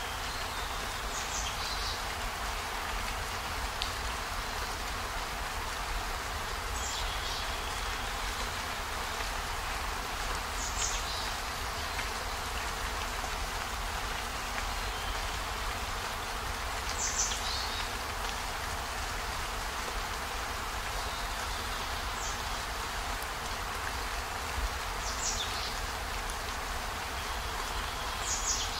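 Steady rain falling, with a short high-pitched sound every few seconds.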